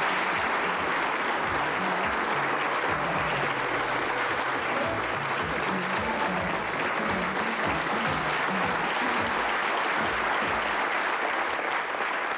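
Studio audience applauding steadily, with music faintly underneath.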